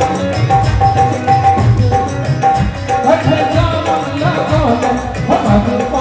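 Live Indian folk music: a tabla-type hand drum keeping a steady beat under a melody of short repeated notes. About halfway through, the melody changes to a wavering, gliding line.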